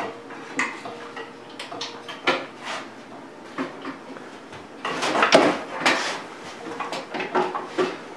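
Repeated metal clanks, knocks and scrapes as the iron doors of a wood-fired brick oven are swung open and a clamp work lamp is clipped into the oven mouth. The loudest clatter comes about five seconds in.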